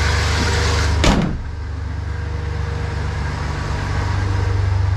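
1993 Ford F-150's 4.9-litre (300) inline-six idling smoothly, with a single loud slam of the hood being shut about a second in; after it the engine sounds duller and more muffled.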